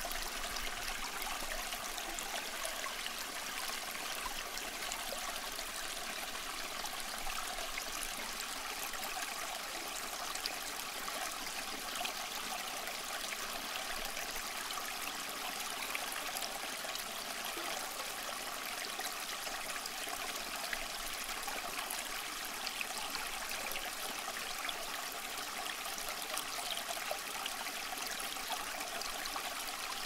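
Water trickling steadily down the ribbed face of a homemade tabletop fountain into its pebble-filled basin.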